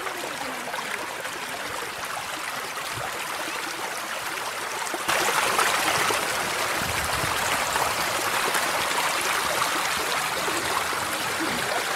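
Mountain stream (Kościeliski Potok) rushing over rocks: a steady hiss of running water with no rhythm, turning suddenly louder about five seconds in.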